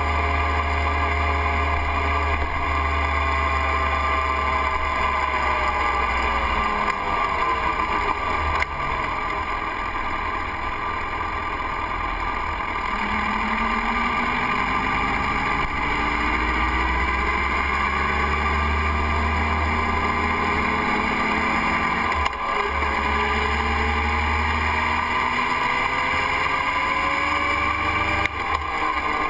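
Motorcycle engine and wind rumble heard from on board while riding. The engine note drops as the bike slows about a quarter of the way in, then climbs again as it picks up speed, with a short break in the note twice in the second half.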